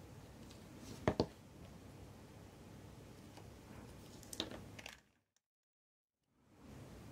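Small watchmaking tools clicking against watch parts on the bench: a quick double click about a second in, then a few lighter clicks and scrapes. The sound then drops out to dead silence for about a second and a half, an edit cut, before faint room tone returns.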